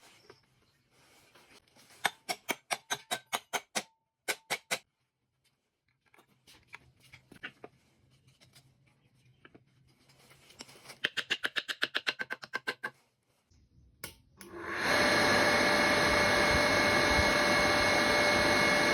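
Two runs of rapid light taps, about five a second. A little under fifteen seconds in, a small electric motor starts and runs steadily at speed with a high whine.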